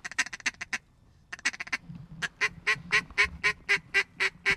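Mallard duck call blown in quick, even runs of quacks, with a short break about a second in, then about four to five quacks a second.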